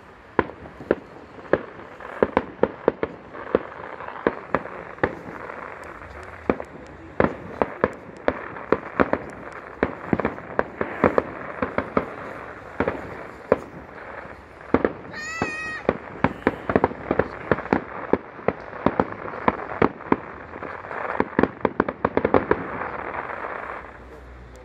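Fireworks display: a rapid, continuous run of sharp bangs from aerial shells bursting, over a steady crackle. A brief warbling whistle sounds about two-thirds of the way through, and the barrage stops abruptly near the end.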